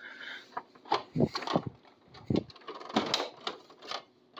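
Plastic front cover of a Senville Aura mini-split wall head being lifted open by hand: a string of irregular plastic clicks and knocks.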